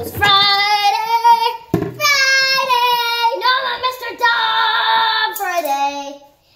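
A young girl singing long, held notes without words, with a brief break about two seconds in and a slide down in pitch near the end.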